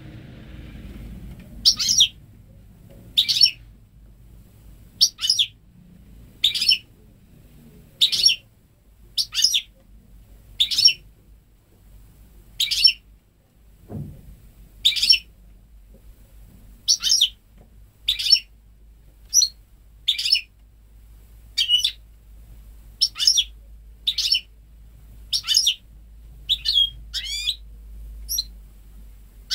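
Goldfinch × canary hybrid (goldfinch mule) calling: short, sharp high chirps repeated every one to two seconds, with a few longer twittering phrases near the end. Its notes are goldfinch-style, as it was raised without ever hearing a male canary.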